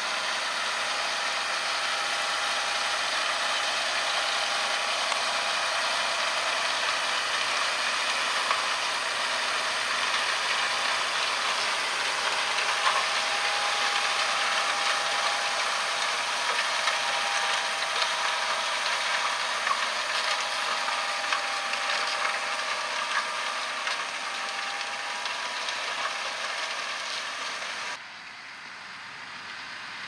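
John Deere 6250R tractor's six-cylinder diesel running under load as it pulls a Kverneland 7-furrow plough through the soil, with a steady whine and scattered clicks and rattles from the plough and linkage. The sound drops suddenly near the end.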